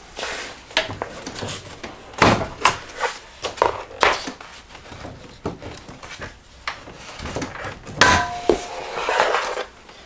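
Plastic toe kick grille on a refrigerator being pried up and pulled off by hand: a run of plastic clicks, knocks and rattles, with louder clacks about two seconds in and again about eight seconds in as its clips snap free of the metal guard.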